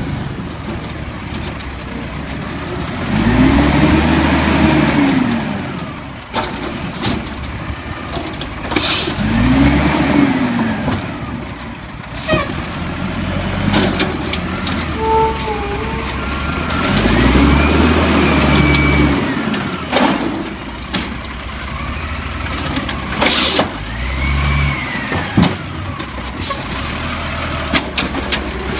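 Diesel engine of an automated side-loader garbage truck running at low speed, revving up and back down four times in slow swells of about two seconds each, with a few short, sharp air-brake hisses in between.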